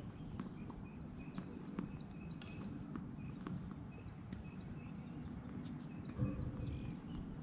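Wind rumbling on the microphone, with short repeated bird chirps and scattered faint clicks, and one louder knock about six seconds in.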